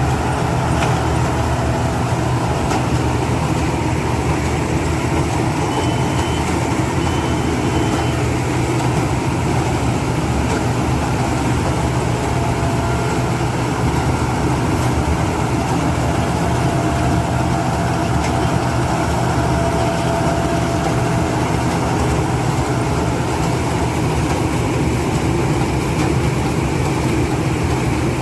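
Rice combine harvester's engine and machinery running steadily: a constant low hum under an even mechanical noise, with no change in speed.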